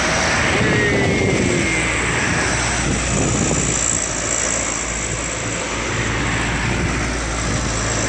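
Diesel engines of light trucks loaded with sugarcane, driving past one after another and pulling uphill at full throttle: a loud, steady engine drone.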